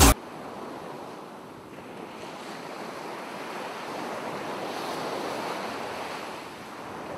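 Music cuts off abruptly; then the soft, steady wash of sea surf and wind, swelling gently in the middle and easing off near the end.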